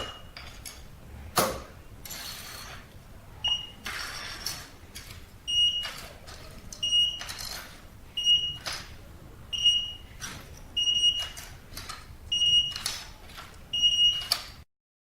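Tivdio touch keypad access controller giving about a dozen short, high single-tone beeps at uneven intervals, with clicks and taps between them, as it is operated during programming to add and delete cards. The sound cuts off suddenly near the end.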